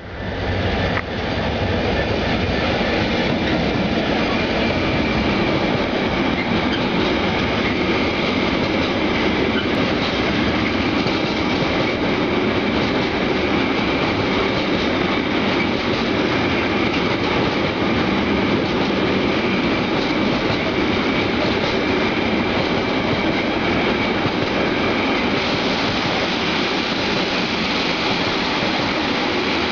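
Intermodal container freight train passing close by, its wagons rolling and clattering over the rails in a loud, steady run. The noise rises to full level within the first second and holds, with a faint steady high tone over it.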